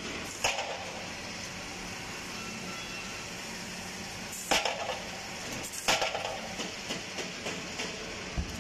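Chocolate production line machinery running with a steady hum. Sharp clattering knocks break in at intervals: loud ones about half a second in, at four and a half seconds and at six seconds, with smaller knocks after that.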